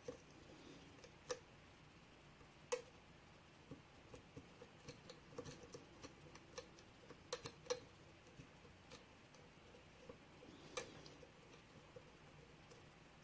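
Light, irregular metallic clicks and ticks from a pick and tension tool working the pins of an AGB 6-pin Euro dimple lock cylinder as it is picked. The clicks are scattered, with a few sharper ones about 3, 7.5 and 11 seconds in.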